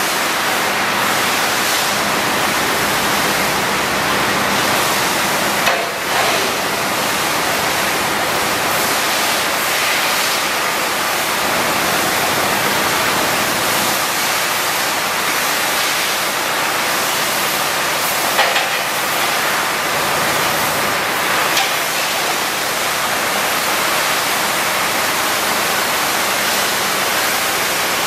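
1995 International 4900 vacuum truck's suction system running, a loud, steady rushing hiss of air pulled through the open suction hose. There are a couple of brief clunks, about six seconds in and again around eighteen seconds.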